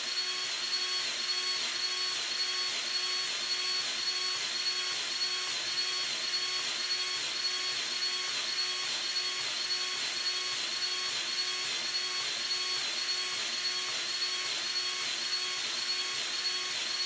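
Powered grease gun running steadily with a high whine that pulses regularly, pumping grease into the track tensioner cylinder of a CAT 304D CR mini excavator: the cylinder filling, its piston extending to tension the rubber track.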